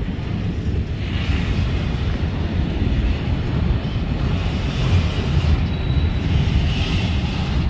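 CSX freight train rolling past, a loud, steady rumble.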